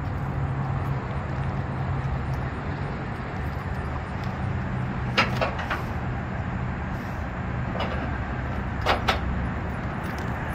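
Steady low hum of a semi truck's engine idling. Two pairs of sharp clicks come through, about halfway and near the end.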